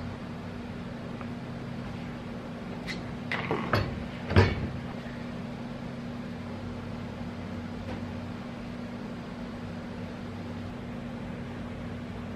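A handful of short metal clanks and knocks between about three and four and a half seconds in, the last one loudest, as a brass torch is set down on a steel workbench. A steady low hum sits underneath throughout.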